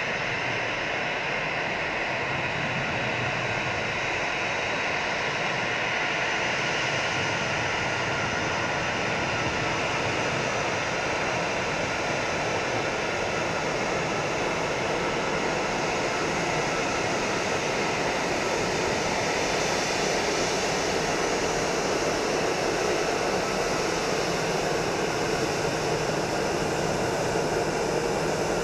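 Airbus A320-216 with CFM56-5B turbofans taxiing at low thrust: a steady jet whine and rush that grows slightly louder and lower-pitched as the airliner draws alongside.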